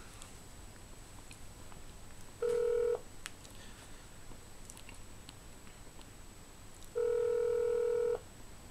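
Telephone ringback tone heard over a phone's speaker while a call waits to be answered. A low steady ringing tone sounds twice: a short ring about two and a half seconds in, and a longer one of about a second near the end.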